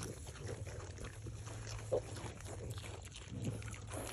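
Kunekune pigs snuffling and chewing as they root through straw for scattered Cheerios, many small rustles and crunches with a couple of short soft grunts.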